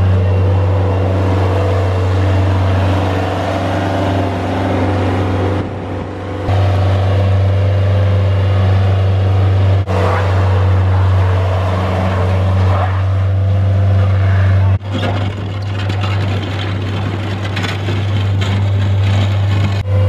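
Bobcat S175 skid-steer loader's diesel engine running steadily with a low, even hum as the machine drives and works its bucket. The level dips briefly about six seconds in, and the sound breaks off for an instant twice, near the middle and about three-quarters through.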